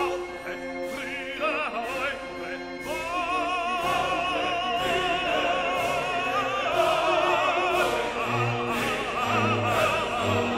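Operatic music: a singer with a wide vibrato over an orchestra, swelling louder about three seconds in.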